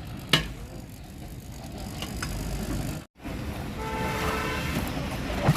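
Concrete pump's engine running with a steady low rumble, with a sharp knock shortly after the start and another near the end.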